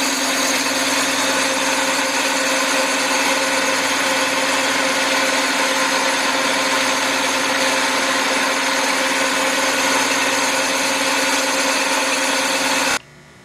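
SIP Hydroptic 8 jig borer running, its spindle turning the boring bar through a cylinder of an AMC/Jeep 258 cast-iron engine block: a steady machine hum with many even tones. It stops suddenly near the end.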